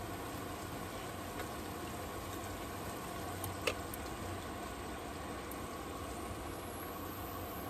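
Food cooking in a pot on a portable stove, a steady low sizzle and bubble. About midway there is a single sharp click as the seasoning shaker's lid is snapped open.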